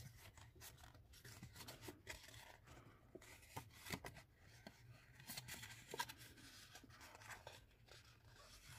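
Faint rustling and small crackles of patterned paper being folded and pressed into shape by hand.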